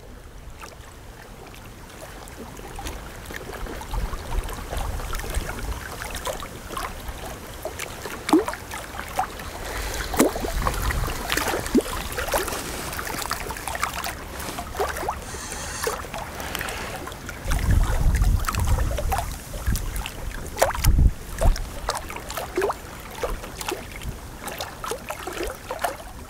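River water lapping and splashing at the bank, with many small splashes, and wind gusting on the microphone in low rumbles, heaviest a little past the middle.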